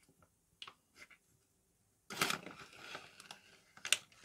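Scissors cutting open a cookie-mix pouch: a few small clicks, then from about two seconds in a loud crinkling rustle of the packet and several sharp snips of the blades.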